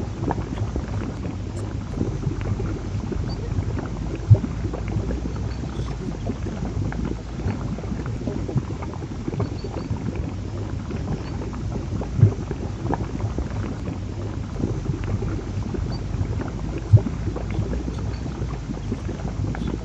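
Water churning and bubbling in a large tank of vinegar solution after baking soda is added, a steady low rushing noise broken by a few dull thumps.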